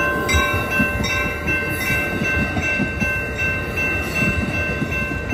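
Amtrak California bilevel passenger coaches rolling past a grade crossing, steel wheels clattering and thumping irregularly over the rails. The crossing's warning bell rings steadily in rapid, even strokes throughout.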